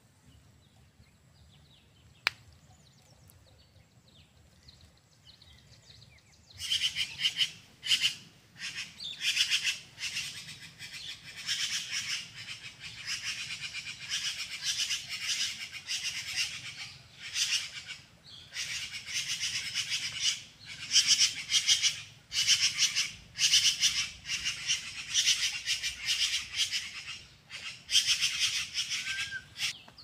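A bird calling in loud, rapid chattering bursts of a second or two each, repeated with short gaps from about six seconds in. A single sharp click comes about two seconds in.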